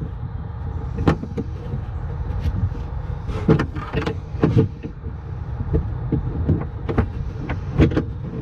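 Irregular knocks, clunks and clicks of a metal part and its bolts being handled and shifted while it is fitted to an ATV, over a steady low rumble.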